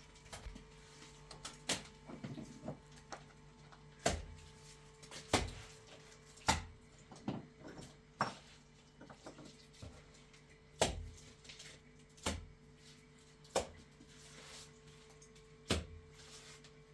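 A series of about ten sharp knocks, unevenly spaced a second or two apart, over a faint steady hum.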